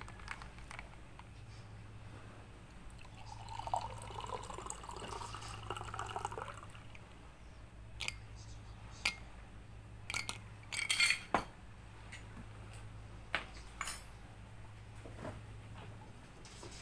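A shaken cocktail poured from a metal cocktail shaker into a stemmed wine glass, splashing and filling for about three seconds. Several sharp clinks and knocks follow.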